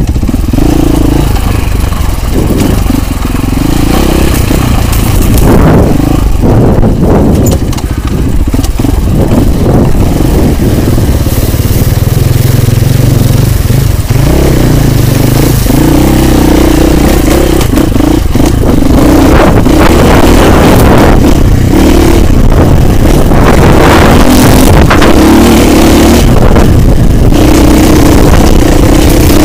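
Husqvarna FE 450 enduro motorcycle's single-cylinder four-stroke engine running under way, heard close from a camera mounted on the bike, its note shifting up and down with the throttle.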